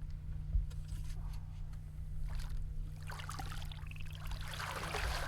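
Boat engine running with a steady low hum. From about three seconds in, a rushing hiss of water or line rises over it.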